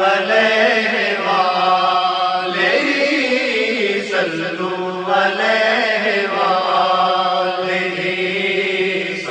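A man chanting a naat, an Islamic devotional song, in long, drawn-out melodic phrases over a steady low drone.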